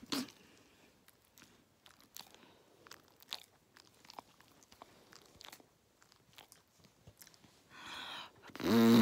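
Faint scattered clicks and smacks, then near the end a short raspy sound and a sudden loud, low, rapidly pulsing fart noise played at the dog.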